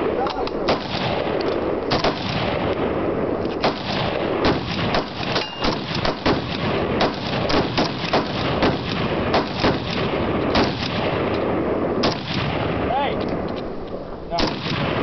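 Machine-gun fire from many guns shooting at once: a dense, unbroken stream of overlapping full-auto bursts and shots at no single rhythm.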